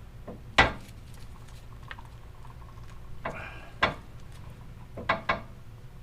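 Scattered clicks and light knocks of metal parts and hand tools being handled during suspension work, five or six in all, with the sharpest about half a second in, over a low steady hum.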